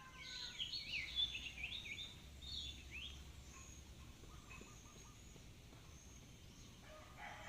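Songbird singing a loud, rapid warbling phrase of quick rising and falling notes for about three seconds, followed by fainter scattered chirps.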